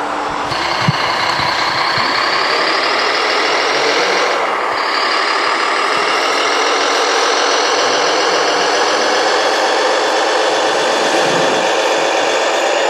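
Scale radio-controlled construction models running: a steady motor whine with several high tones, one rising slowly during the first four seconds, then holding level.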